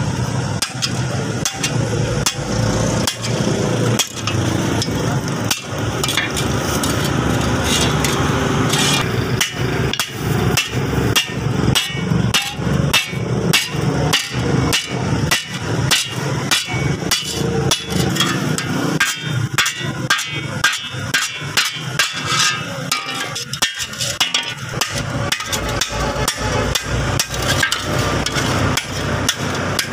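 Hand hammer striking a flat steel hoe plate on an anvil block, the rapid, evenly paced blows shaping the blade, about two to three a second.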